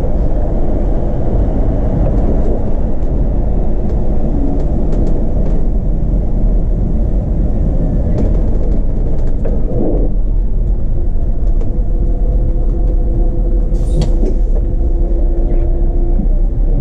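City bus driving, heard from the driver's seat: a loud, steady low rumble. About ten seconds in a steady hum of several tones joins it, and a sharp click sounds near the end.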